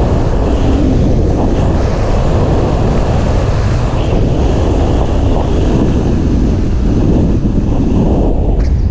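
Wind buffeting a wearable action camera's microphone during a downhill ski run: a loud, steady rumbling rush.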